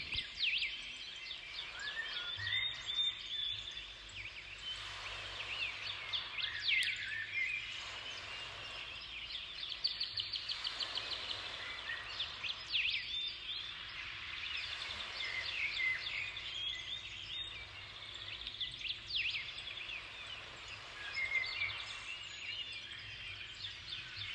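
Many small birds chirping and calling over one another, with quick trills now and then, over a faint low steady hum.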